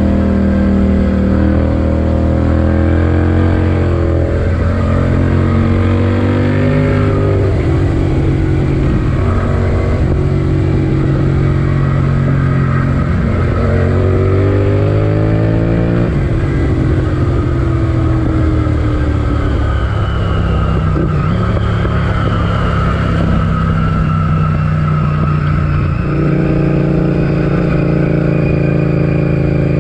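Honda VTR1000F Firestorm's 90-degree V-twin engine heard on board while riding, its note rising and falling with the throttle. The pitch shifts in steps several times and climbs steadily about halfway through under acceleration, then holds at a steady cruise with a jump in pitch near the end.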